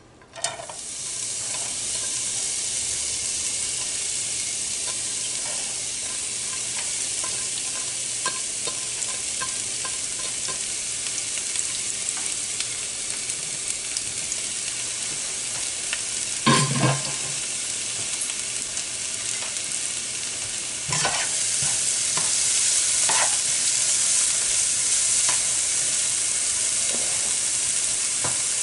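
Chopped onion, green onion, garlic and hot pepper hit hot oil in a frying pan and start to sizzle suddenly, then fry with a steady sizzle. There is one loud knock about halfway through. For the last third the sizzle is louder as a spatula stirs the aromatics in the pan.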